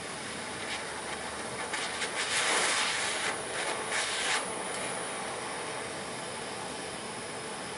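Torch flame hissing steadily while heating a stainless steel spoon of aluminium scrap to melt it. About two seconds in, a louder rough rush of noise swells for roughly two and a half seconds, then settles back to the steady hiss.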